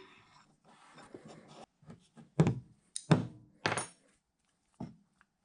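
Hands rubbing over a steel drill press spindle and quill assembly, then about five sharp metallic clunks and clinks as the assembly is shifted and tipped. The spindle is a loose fit in its new bearings, which turn out to be the wrong ones.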